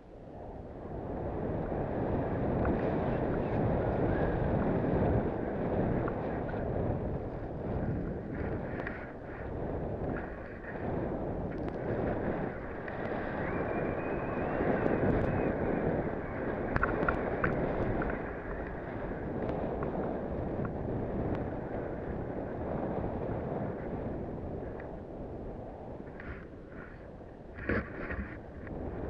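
Wind buffeting the microphone of a head-mounted action camera during a downhill ride through powder snow, mixed with the hiss of snow under the rider. It builds about a second in, and a few sharp clicks come near the end.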